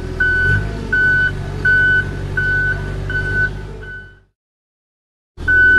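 A large vehicle's reversing alarm beeping steadily, about three beeps every two seconds, over a low engine rumble. It cuts off about four seconds in and starts again after a second of silence.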